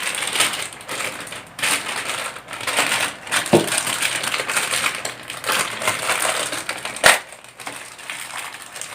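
Crinkling and rustling of the microphone cable being handled and unwrapped. A short click comes about three and a half seconds in, and a sharp knock about seven seconds in.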